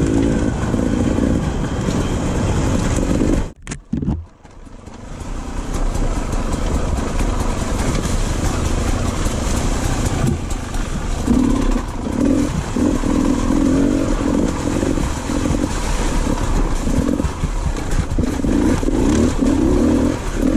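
Enduro dirt bike engine running as the bike is ridden over rough forest trail, the throttle opened and closed in repeated surges from about eleven seconds on. The sound drops out abruptly for under a second about three and a half seconds in, then builds back up.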